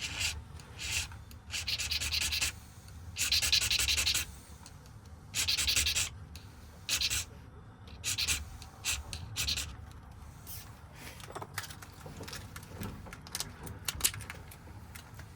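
Irregular short bursts of rubbing and scraping from small lock parts being worked by hand, about a dozen strokes, the longest lasting about a second; the strokes grow shorter and fainter in the second half.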